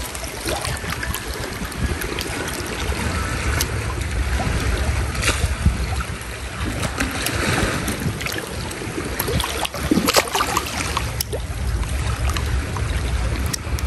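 Wind on the microphone over sea water, a steady low rumble under a hiss, with a few short knocks.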